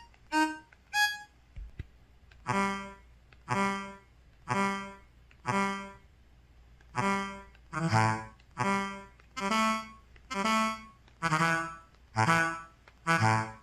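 EVER EV-W530 mobile phone's system tones, played on its Qualcomm CMX 72-voice synthesizer with a reedy, harmonica-like timbre. First come two short rising notes. After a pause, a short note repeats about once a second, then comes faster at a shifting, lower pitch.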